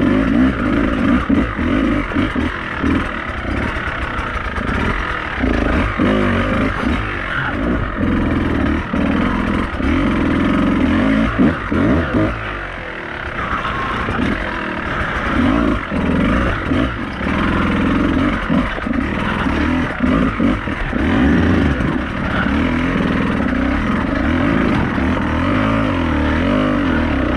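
Beta 200RR two-stroke dirt bike engine running under load, its revs rising and falling as the throttle is worked, with a brief easing off about halfway through.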